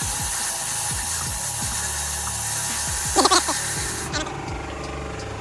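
Background music with a steady beat over a steady hissing noise that cuts off about four seconds in, with a brief louder sound just after three seconds.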